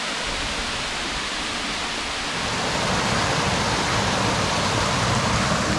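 Small jungle waterfall splashing over rock ledges into a pool, a steady rushing of water that turns louder and deeper about halfway through.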